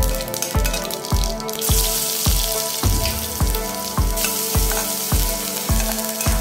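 Chopped garlic frying in hot oil in a kadhai, the sizzle setting in strongly about two seconds in. Background music with a steady beat plays over it.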